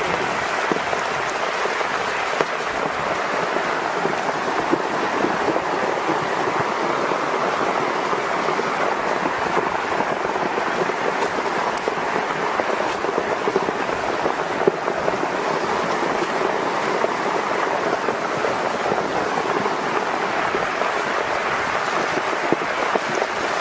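Steady, unbroken rushing of water, heavy rain or floodwater, with no pauses or distinct impacts.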